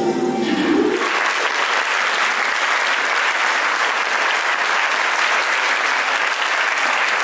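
Audience applauding: the music stops about a second in and steady clapping from a large crowd fills the rest.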